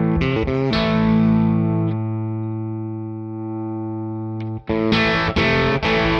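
Electric guitar played through a JHS Clover preamp boost into a Fender '65 Deluxe Reverb amp, lightly overdriven. A few quick chords open it, then one chord is left ringing and fading for about three seconds before being cut off, followed by short, choppy chords near the end.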